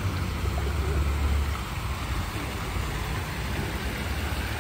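Fountain jets splashing steadily into a stone basin, over a low rumble that is strongest about a second in.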